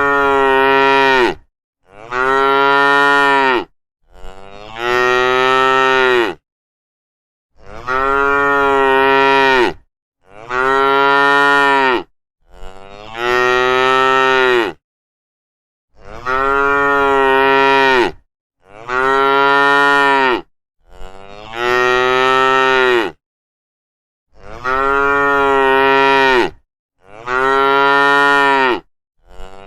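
Cattle mooing: about a dozen long moos in a row, each about two seconds, with dead silence between them.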